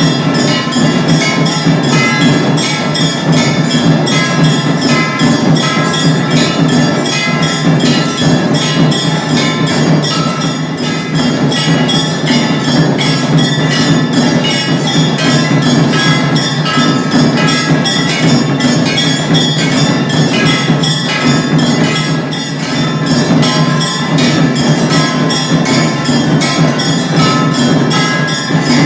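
Music built on a fast, even beat of bell and percussion strikes over sustained ringing tones, running without a break.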